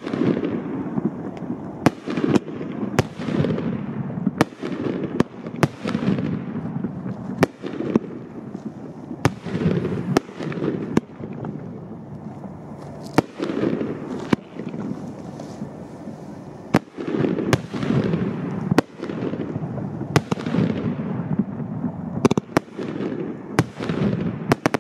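A 25-shot consumer firework cake firing shot after shot, its aerial shells bursting in sharp bangs about once a second. Each bang is followed by a low, fading echo.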